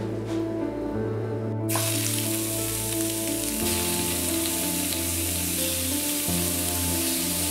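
Ground beef starting to sizzle in a hot oiled stainless steel skillet: a steady hiss that sets in about two seconds in, after a single knock, over background music.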